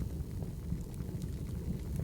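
Wood fire burning: a steady low rumble with a few faint, scattered crackles.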